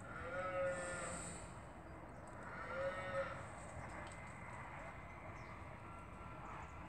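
Farm animals calling: two drawn-out calls, each about a second long and rising then falling in pitch, one at the start and one about three seconds in, then quiet background.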